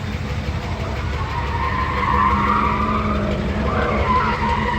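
1957 Ford Thunderbird's Y-block V8 idling with a steady, fast-pulsing rumble. A wavering higher whine rises over it for a couple of seconds in the middle.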